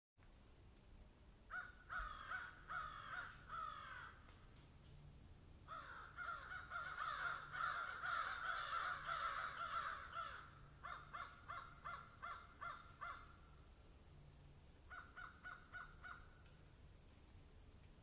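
Crows cawing in several runs of repeated caws. First comes a string of falling caws, then a long stretch of dense overlapping calls, then two runs of short, quick caws, the last near the end.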